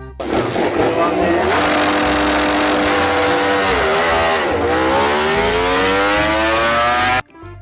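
Racing motorbike engine sound effect. The engine revs and holds a steady pitch, drops briefly about four seconds in, then climbs steadily in pitch as it accelerates and cuts off abruptly near the end.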